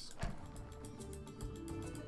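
Online video slot game music with a rapid ticking effect, about eight ticks a second, as the free-spins bonus loads. A louder music phrase starts right at the end.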